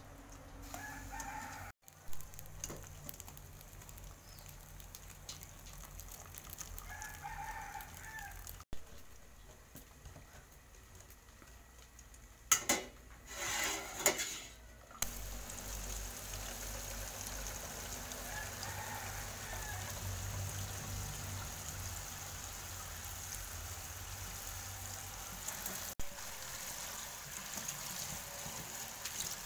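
A rooster crows three times in the background, each crow about a second long. Midway there is a burst of knocks and clatter, then tap water starts running steadily onto leaves in a plastic colander in a steel sink.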